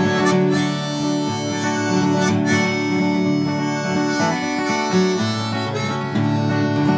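Harmonica in a neck rack playing a melody of held notes over a flatpicked acoustic guitar, an old Washburn, in a bluegrass style.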